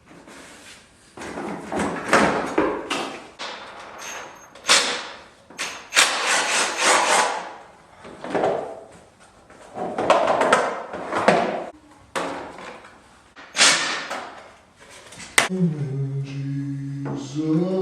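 Cordless impact driver running in short bursts on bolts, mixed with knocks and clatter of parts being pulled off and set down. Near the end a steadier whirring tone steps up in pitch.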